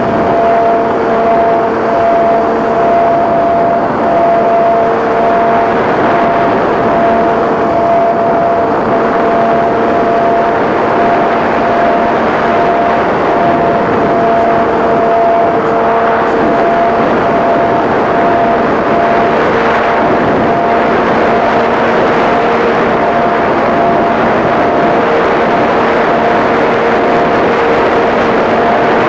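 A Multiplex EasyStar RC glider's electric pusher motor and propeller run at a steady speed, heard from the onboard phone, with loud rushing airflow over the microphone. A steady whine holds two pitches, and the lower one drops in and out now and then.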